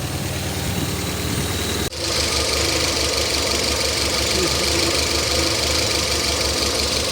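Citroën Xantia petrol engine idling roughly with an uneven, pulsing shake, the sign of a misfire from a failing ignition coil. The sound breaks off for an instant about two seconds in.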